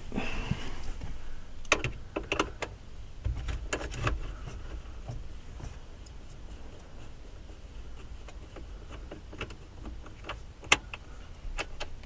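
Scattered sharp clicks and light metallic knocks in small clusters: a 7 mm socket and ratchet working the radio's mounting bolts in the dash.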